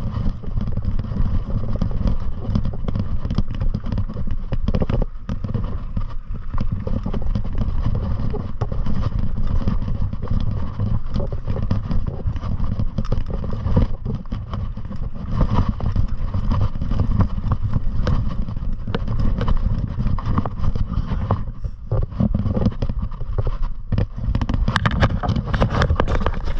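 Low, gusting wind rumble on the microphone with frequent rattles and knocks from riding downhill over rough ground.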